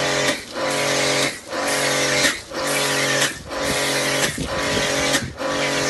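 Pressure washer running and spraying snow foam through a foam lance: a steady motor hum with a hiss of spray that dips briefly about once a second, pulsing regularly.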